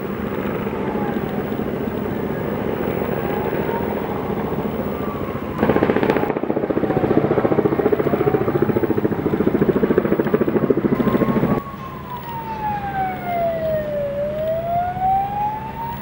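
Firefighting helicopter rotor noise, much louder from about six seconds in until it drops off abruptly near twelve seconds. A siren wails slowly up and down through it, heard clearly once the rotor noise falls away.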